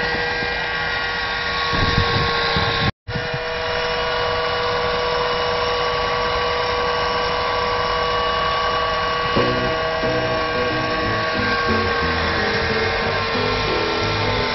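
Electric rotisserie motor on a gas barbecue turning a wire fish basket on the spit, a steady whine over a hiss, with a brief dropout about three seconds in. Background music comes in about two-thirds of the way through.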